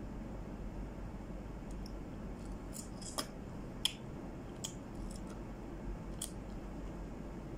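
A kitchen knife slicing through a peach held in the hand, then a few short, sharp clicks and smacks as the piece is eaten, over a steady low hum.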